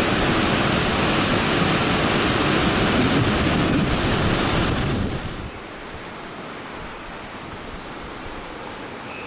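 Waterfall rushing loudly, running high after days of rain. About five seconds in the sound drops suddenly to a quieter, duller rush of stream water.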